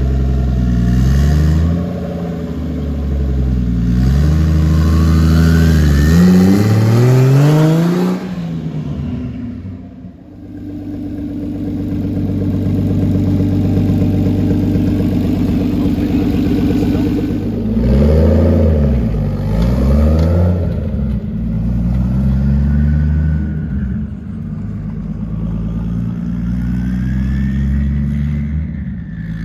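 Turbocharged BMW 325i straight-six accelerating hard through the gears, revs climbing and dropping at each shift, with the turbo's high whistle rising as it spools. It eases off about ten seconds in, runs steadier, then revs up again, with the turbo whistle sweeping up and down near the end.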